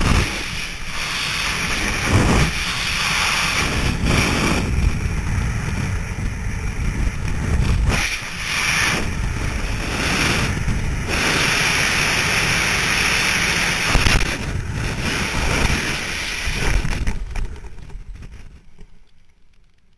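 Freefall wind rushing over a GoPro camera's microphone, a loud steady blast of air with gusty buffeting. Near the end it dies away as the parachute opens and the fall slows to canopy flight.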